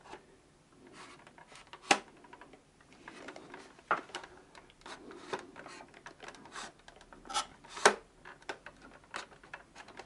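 A 1990 Polish wall-mounted telephone's plastic case scraping and rubbing against the wall and its mounting bracket while being lined up to hang back on it, with scattered sharp clicks and knocks, the loudest about two seconds in and near eight seconds.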